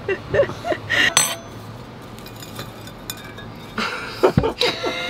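Metal baking pan clattering and knocking against a ceramic plate as a cake is turned out of it, a cluster of knocks and clinks about four seconds in.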